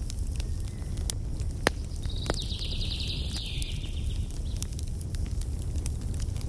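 Campfire crackling, with sharp scattered pops over a low steady rumble. A bird gives one high trill about two seconds in.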